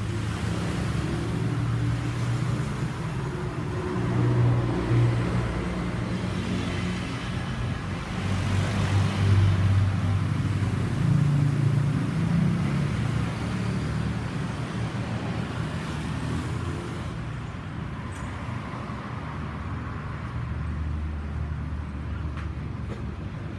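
A motor vehicle's engine running, its pitch shifting up and down, with road noise; it eases somewhat near the end.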